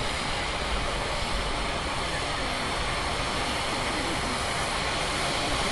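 Steady even background noise with faint distant voices.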